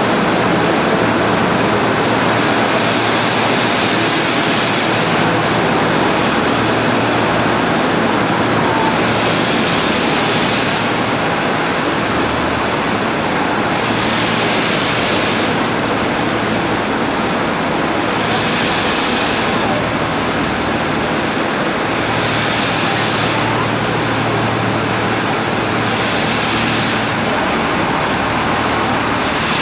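Steady, loud rushing hiss of steam from NSW C36 class steam locomotive 3642, brightening in a hissy surge about every four seconds.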